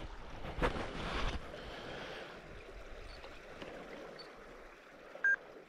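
Small river flowing with a soft, steady rush, with a brief louder swish about a second in and a single short high pip near the end.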